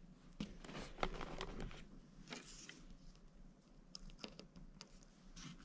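Faint, scattered clicks, taps and light scrapes of fingers handling small crappie tube jigs on a wooden tabletop.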